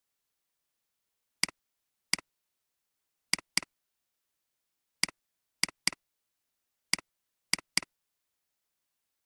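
Computer mouse button clicking: about ten sharp single clicks, three of them close pairs (double-clicks), with dead silence in between.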